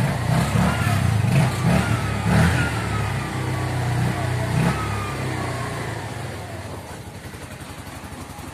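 Bajaj RE auto-rickshaw's single-cylinder engine running and revving in several surges, with a high whine falling in pitch, then getting quieter over the last few seconds. This is its first run after a new clutch lining, once the oil warning light has gone out.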